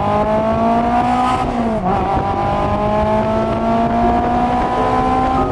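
Car engine accelerating hard, its pitch climbing steadily, dropping briefly at a gear change about two seconds in, then climbing again through the next gear.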